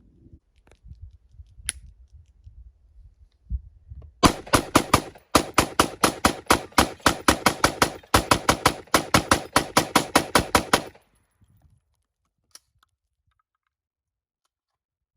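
Rapid semi-automatic fire from an AR-15 rifle in .223, a long string of loud, evenly spaced shots at about five a second, with one brief break after the first few shots. The string lasts about seven seconds and stops suddenly.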